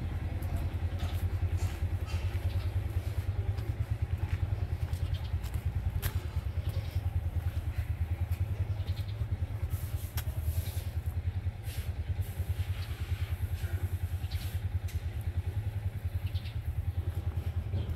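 A small engine running steadily, with a fast, even low chugging pulse, like a motorcycle or scooter engine.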